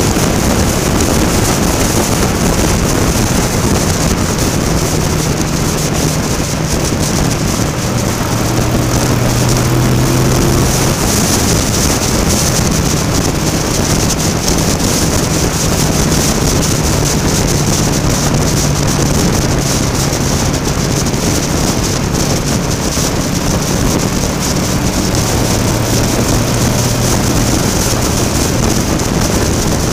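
Motorcycle engine running at a steady cruise, heard through heavy wind rush on a helmet-mounted camera.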